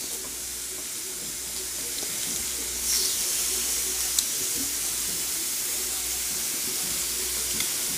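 Pork belly sizzling as it grills: a steady hiss that grows a little louder about three seconds in.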